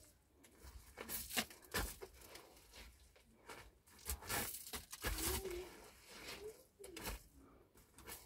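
Wet mud plaster being slapped and smeared by hand onto a dry-stone wall: irregular soft slaps with scraping in between.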